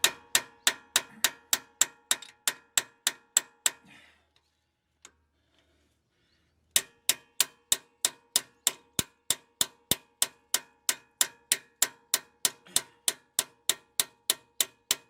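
Hammer tapping a steel bearing driver to press a new Timken bearing into its seat in a GM 7.5-inch differential, at about three or four even strikes a second, each with a short metallic ring. The tapping stops for about three seconds in the middle, then starts again at the same pace.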